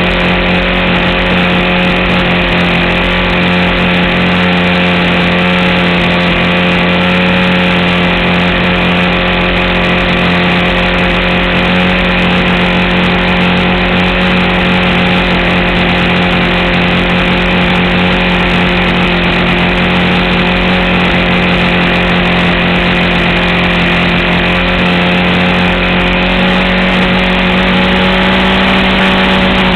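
RC model airplane's engine running steadily at a constant high pitch in flight, close to the microphone, with wind rush from the airflow.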